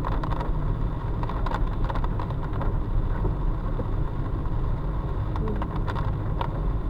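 Car driving in heavy rain, heard from inside the cabin: steady low road and engine rumble with tyre and rain hiss, and scattered irregular ticks of rain hitting the car.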